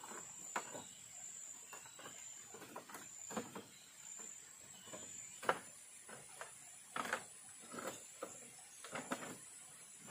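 Irregular light knocks and clatters, several of them sharp, over a steady high-pitched insect drone, with a second, higher drone joining about halfway.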